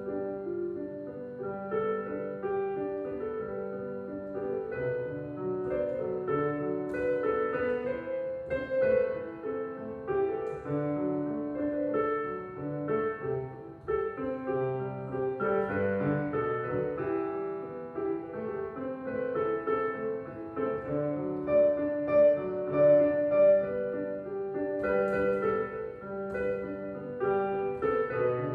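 Electronic piano being played: a melody over chords, with one note after another and no pauses.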